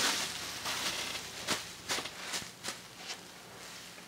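A disposable absorbent underpad rustling as it is spread and laid over the chest, with a handful of short crinkles in the middle before it settles.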